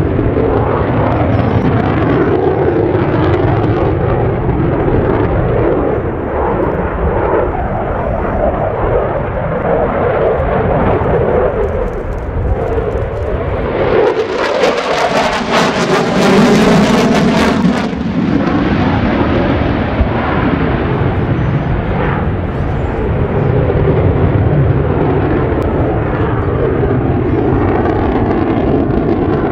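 Mitsubishi F-15J Eagle fighter's twin F100 turbofan engines running loud and steady during a low display pass. About halfway through, the jet goes by at its closest, and for about four seconds the sound turns brighter and hissier with a sweeping, wavering tone, then settles back to a deep rumble.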